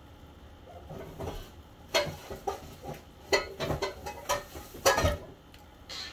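Close-miked eating mouth sounds: a run of wet smacks and clicks from the lips and tongue, starting about a second in and stopping about five seconds in.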